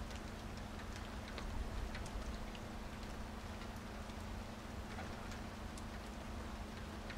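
Steady rain falling, with individual drops ticking irregularly on a surface, over a steady low hum.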